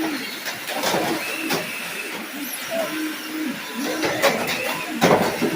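Radio-controlled cars' motors whining up and down in short bursts, with a series of sharp knocks and clacks as the cars ram each other, the loudest near the end.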